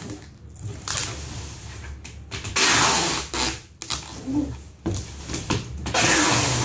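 Packing tape being pulled off its roll in long noisy strips while taping a cardboard box: two loud pulls, one about two and a half seconds in and one near the end, with lighter handling of the box in between.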